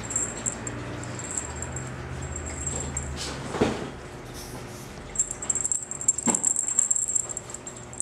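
A Maine Coon kitten's paws and claws on a hard tabletop: fine scratchy ticks clustered in the second half, a soft thump about halfway through and a sharper knock later, over a low hum.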